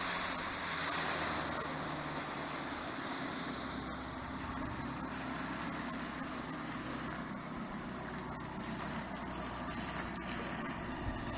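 Outboard motor of a small aluminium fishing boat running steadily, mixed with a steady hiss of wind and water.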